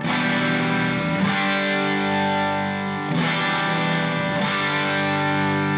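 Background rock music: distorted electric guitar playing sustained chords that change every second or two.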